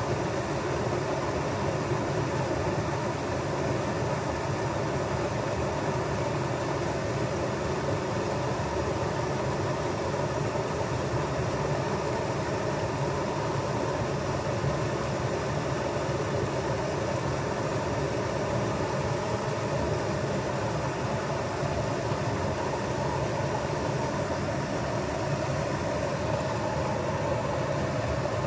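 Steady rush of a small waterfall spilling over rocks into a creek pool.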